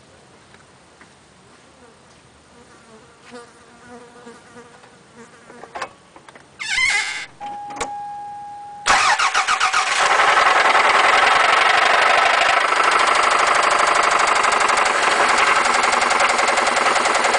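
A 1996 Toyota Celica's 5S-FE four-cylinder engine cranks and starts about nine seconds in, then runs loudly with a rapid, steady knock: rod knock from a failing connecting-rod bearing. Before the start there is a loud short thump and a brief steady beep.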